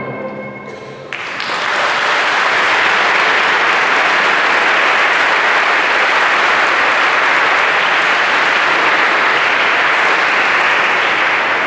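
Audience applauding: it starts about a second in, as the last note of the music fades, and holds steady.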